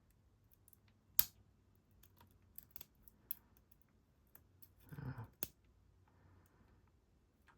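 Scattered small clicks of a lock pick and tension wrench working the pins of a Squire Vulcan P4 padlock during single-pin picking, with one sharper click about a second in and another about five seconds in.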